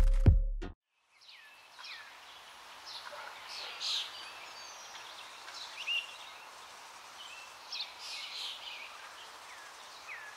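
Electronic music ends with a last bass hit about half a second in. After a moment of silence, an outdoor ambience of birds chirping on and off over a steady background hiss comes in.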